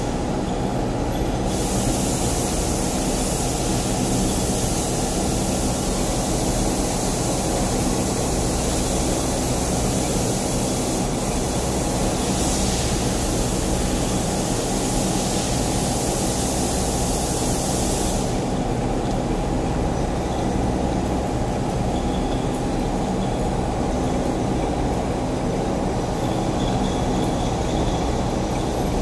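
Steady machinery noise: a constant rushing hum with several steady low tones under it. A higher hiss joins about a second and a half in and cuts off suddenly about two-thirds of the way through.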